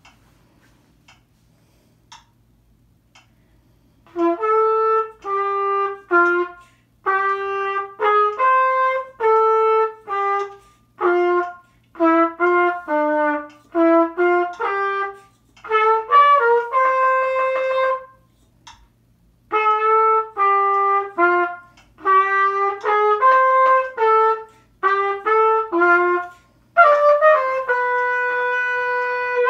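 A solo brass instrument playing a tune in short phrases of separate notes, ending on a long held note near the end. A few faint clicks about a second apart come before it starts.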